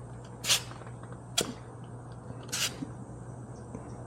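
Three short hisses of air escaping at the rear motorcycle tire's valve stem as a pressure gauge or pump fitting is pressed on to check the pressure, over a faint steady hum.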